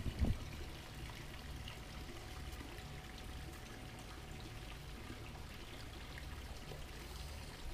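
Steady outdoor ambience: wind on the microphone gives an uneven low rumble under a faint even hiss, with a faint steady hum in the background.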